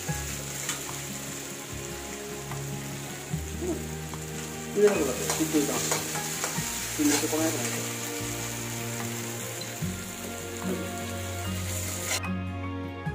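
Sliced potatoes sizzling as they fry in oil in a steel wok, stirred with a metal spatula that scrapes and clinks against the pan, the scraping loudest in the middle. Faint background music runs underneath, and about a second before the end the sizzling cuts off, leaving only the music.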